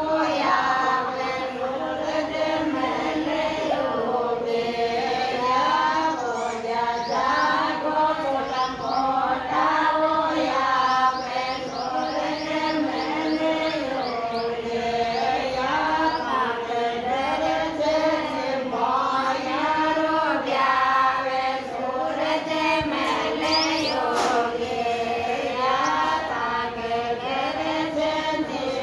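A group of women singing together in unison, a continuous chant-like song that carries on throughout.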